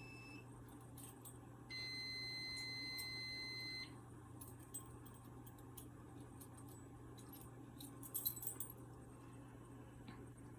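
A fire alarm panel's sounder gives one steady beep of about two seconds while the system is reset from the annunciator. Scattered light clicks follow, then a short jingle of keys near the end.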